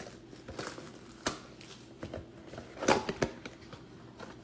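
A sealed box of trading cards being opened by hand: rustling of wrap and cardboard with a few sharp taps and crackles, the loudest cluster about three seconds in.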